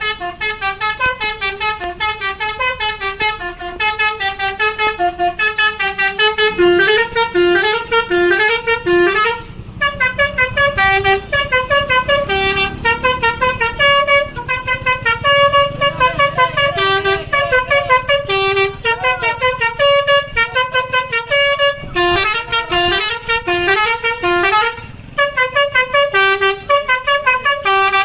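Tour bus's 'telolet basuri' musical horn, a set of electrically switched air-horn trumpets, playing a fast tune of short, quick horn notes, with a few brief breaks in the melody.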